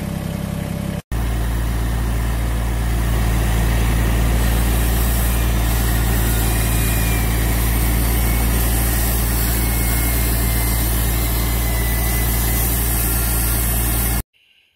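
Compact tractor's engine running steadily as it drives with a loaded front-end loader bucket of sand; the sound stops abruptly near the end. A quieter steady machine hum fills the first second.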